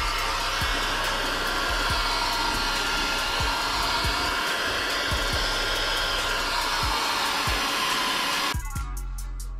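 Electric heat gun blowing steadily as it heats the paint on the car's front wheel-arch lip to soften it before the arch is rolled, so the paint doesn't crack. It switches off about eight and a half seconds in.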